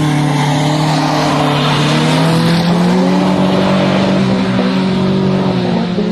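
Two drift cars held at high revs as they slide through a corner on wet asphalt, with tyre noise throughout. One engine note stays steady while another rises and falls.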